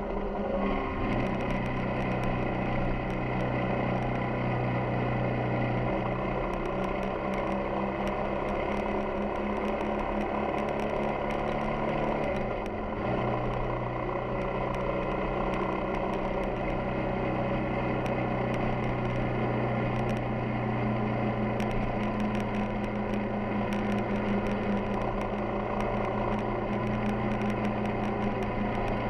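Yamaha XTZ 250 Ténéré's single-cylinder engine running steadily under way, over a constant rush of wind and road noise. The engine note dips briefly about a second in and again about 12 seconds in, then holds steady once more.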